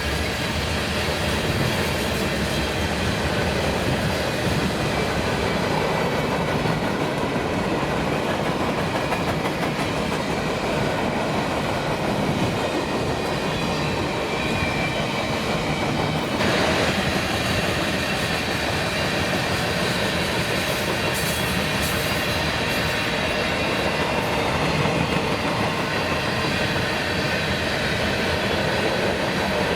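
Freight train cars rolling past steadily on the rails, with one brief sharp clank about halfway through.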